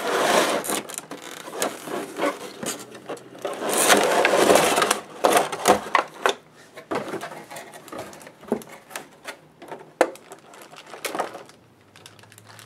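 A package being opened by hand: rustling bursts of wrapping with many small clicks and taps. It is loudest at the start and again around four to five seconds in, then turns to scattered lighter clicks.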